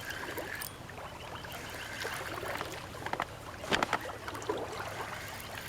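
Water splashing and sloshing as a hooked carp is played and reeled in toward the bank, with a few sharp clicks about four seconds in.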